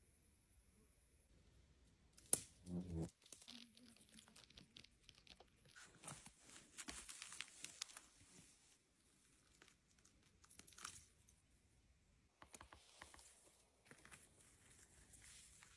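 Faint rustling and crackling of moss, twigs and dry forest litter being handled as mushrooms are picked by hand, in several short bursts. A brief louder bump comes a little over two seconds in.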